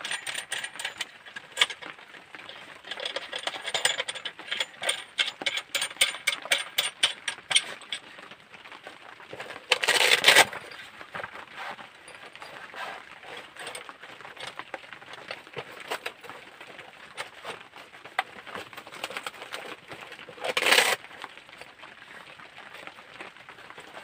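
Metal parts of a folding multifunction shovel clinking and rattling as it is handled and stowed in a shoulder bag, with dense clicks over the first several seconds. Two short tearing rasps of a velcro flap follow, about ten seconds apart.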